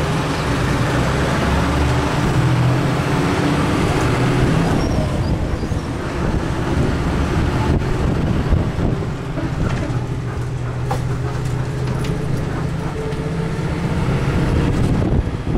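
Overland truck's engine running steadily under way, with road and wind noise, heard from inside the open-windowed passenger cabin. A few short knocks and rattles come after about eight seconds.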